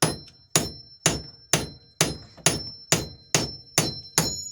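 Small hammer striking a hand-forged 1084 steel knife about two blows a second, ten times, driving its Scandi edge through a steel framing nail; each blow leaves a brief high metallic ring.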